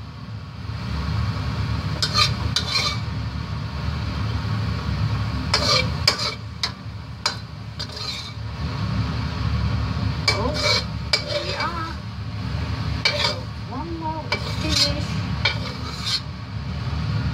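Metal spatula scraping and knocking against a wok as a stir-fry is stirred and scooped out, a dozen or so irregular sharp scrapes over a steady low rumble.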